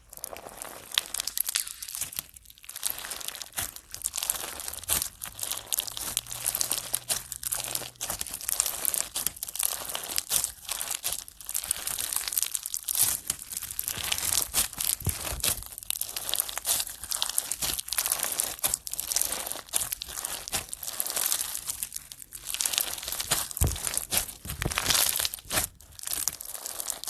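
Slime being squeezed and kneaded by hand: a dense, continuous crackling and popping of many small sharp clicks.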